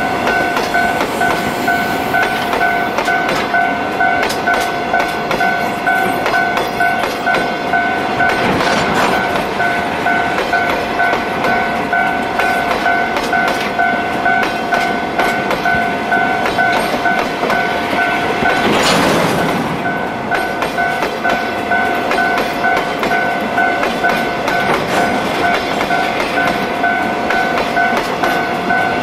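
Freight train of loaded tank wagons rolling past close by, with wheels clacking over the rail joints in a steady rhythm and two louder swells of wheel noise, about nine and nineteen seconds in. A level crossing bell rings throughout as a rapid, pulsing two-pitch tone.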